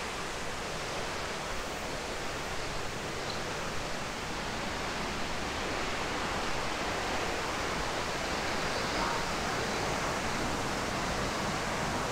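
Steady rush of flowing water, growing slightly louder.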